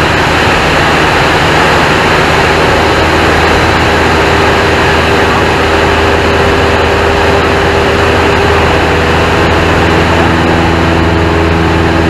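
Single-engine propeller airplane's piston engine and propeller running steadily in flight, heard loud from inside the cockpit along with the rush of the airflow.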